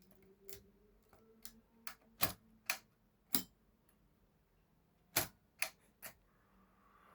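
Mechanical clicks from a 1961 Erika 10 typewriter's levers and mechanism being worked by hand: about nine sharp clicks, irregularly spaced, with a pause of about two seconds in the middle.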